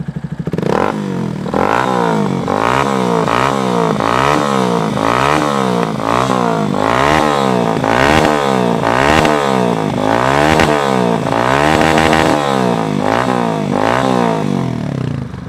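Yamaha YS Fazer 250 single-cylinder four-stroke engine through a Hurricane aftermarket exhaust, revved up and let back down about once a second, a dozen or so loud blips, the pitch rising and falling with each one. It settles back toward idle near the end.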